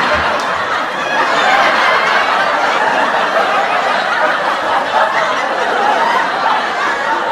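Sitcom laugh track: a studio audience laughing together, holding at an even, loud level.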